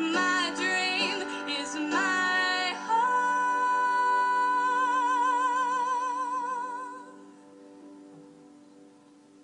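Background music: a singer's melody, then one long held note with vibrato that fades about seven seconds in, leaving soft sustained accompaniment.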